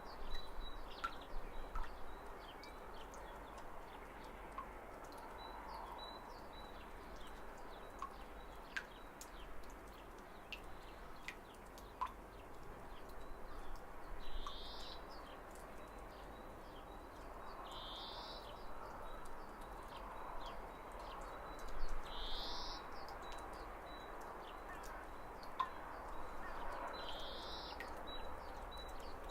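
Outdoor spring ambience: a steady background hiss with birds chirping. One bird repeats a short rising call about every four seconds in the second half, among scattered small chirps and ticks.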